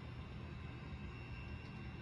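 Faint, steady low drone of an HO scale model diesel locomotive running, with a hiss over it.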